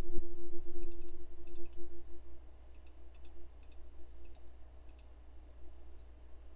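A run of computer-mouse clicks, each a quick double tick of press and release, coming at an uneven pace as the calendar's next-month arrow is clicked again and again. A faint steady hum runs underneath.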